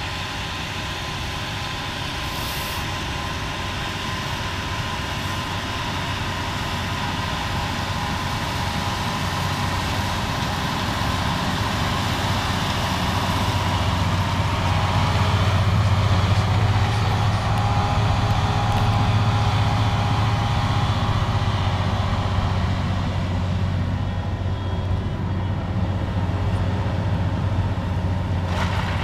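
Massey Ferguson 7726 tractor's six-cylinder diesel engine running steadily under load while pulling a seed drill. Its low drone grows louder as the tractor comes nearer, peaks about halfway through, then eases slightly.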